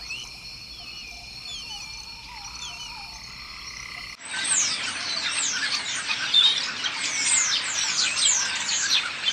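A steady high-pitched drone with a few whistled bird calls. About four seconds in, this switches abruptly to a loud, dense chorus from a large flock of small birds, many quick falling chirps at once.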